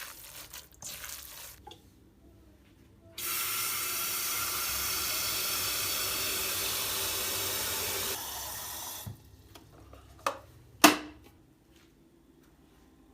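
Water running steadily, starting suddenly about three seconds in and stopping about six seconds later, then two sharp knocks, the second loud.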